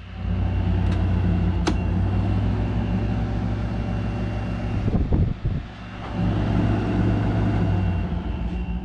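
Kool King window air conditioner running, a steady low hum of its compressor and blower, with a short dip about five and a half seconds in.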